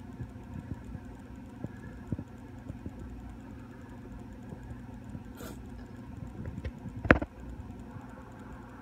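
A steady low hum, with faint scattered clicks and one sharp knock about seven seconds in.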